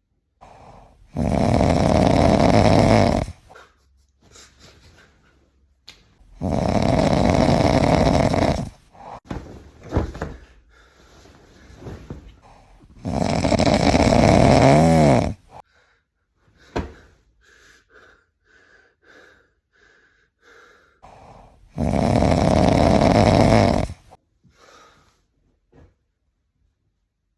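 Loud snoring: four long snores of about two seconds each, several seconds apart, with quiet breathing between them. Between the third and fourth snores comes a run of short high-pitched whistles.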